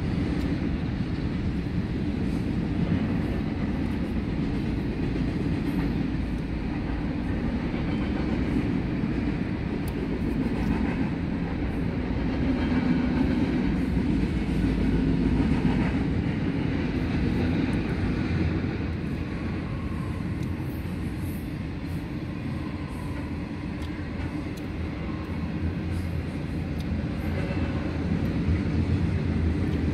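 Double-stack container cars of a freight train rolling past: a steady rumble of steel wheels on the rails with faint clicks, swelling and easing slightly as the cars go by.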